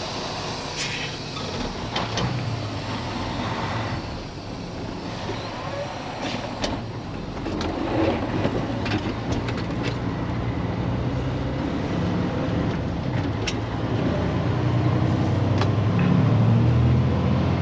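Semi truck's diesel engine running while driving, a steady low hum that grows louder over the last few seconds, with a few light clicks.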